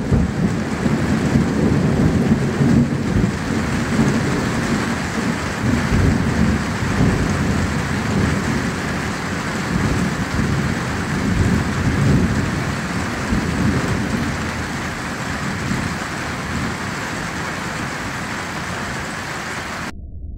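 Thunderstorm: steady rain with a long roll of thunder rumbling low and slowly dying away.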